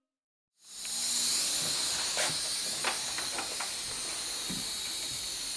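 Gas torch hissing steadily, starting up about a second in, with a few light clicks; the flame is heating a small brass part to red heat to soften it (annealing).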